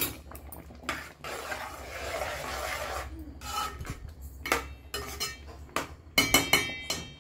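A metal spoon stirring and scraping through broken wheat and water in a metal pot. Near the end it clatters against the pot's side and bottom in a run of knocks, with a short metallic ring.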